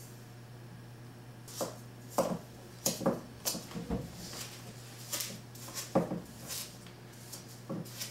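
A wooden spoon knocking and scraping against a glass mixing bowl in irregular sharp clicks while butter and sugar are creamed by hand, over a low steady hum.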